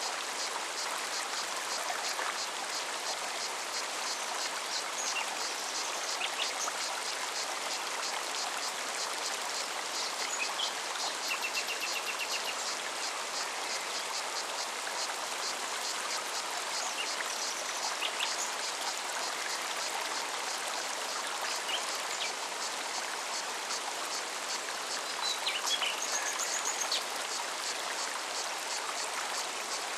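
Forest stream running steadily, with a cicada's evenly pulsing song high above it throughout. A few short bird chirps and a brief trill come and go.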